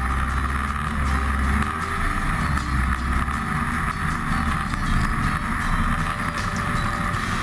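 Snowmobile engine running steadily as the sled travels along the trail, heard from a camera mounted on its hood.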